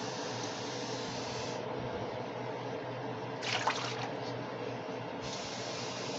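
Water pouring and splashing into a roasting pan. The pour eases off about a second and a half in, then picks up again near the end. A brief sharp clatter or splash comes about halfway through.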